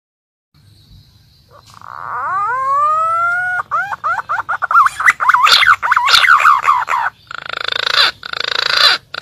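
Green pigeon (punai) calling. It starts with a long rising whistle, runs into a fast series of warbling whistled notes, and ends with harsh raspy notes.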